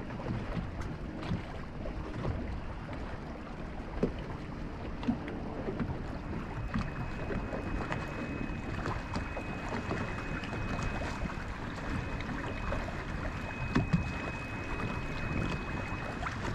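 Wind buffeting the microphone over small waves lapping against a boat's hull, with a few sharp knocks. About six seconds in, a faint steady high whine joins and continues.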